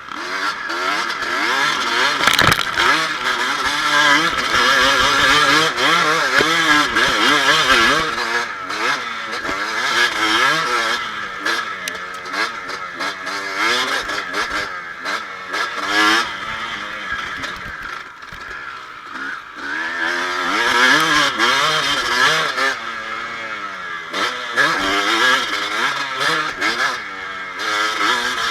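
Kawasaki KX250 motocross bike engine being ridden hard, its pitch rising and falling again and again as the throttle opens and closes. There is a sharp knock about two and a half seconds in.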